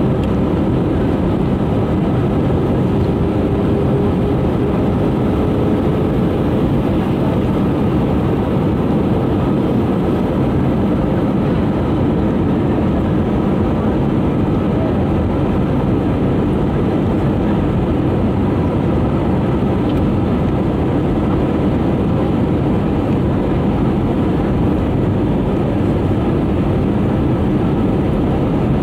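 Steady jet engine and airflow noise of an Airbus A320 on approach, heard inside the passenger cabin, with a faint whine that fades out about six seconds in.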